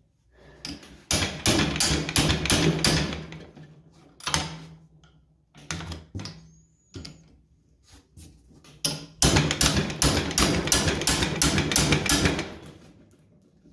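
Socket wrench working a seized bolt on an old reel mower: two long runs of rapid metallic clicking and rattling, with a few single knocks between.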